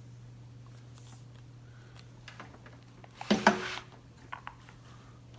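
A short clatter of sharp clicks and knocks about three seconds in, then two fainter clicks, over a steady low electrical hum.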